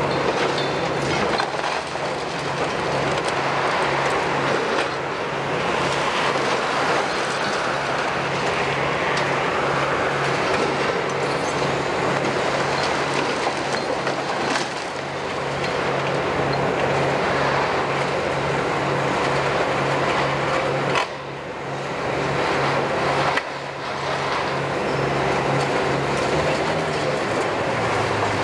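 Kiesel KMC 600 high-reach demolition excavator, with a six-cylinder Isuzu diesel, running steadily under load as its demolition tool crushes brick and concrete. Rubble cracks and falls as it works.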